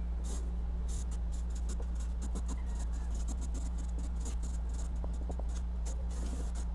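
Marker pen writing on paper taped to a wall: quick, irregular scratchy strokes, several a second, as letters are written. A steady low hum runs underneath.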